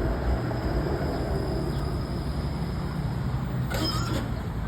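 Toronto streetcar rumbling low and steady as it pulls up to a stop. A brief burst of hiss and high squeal about four seconds in.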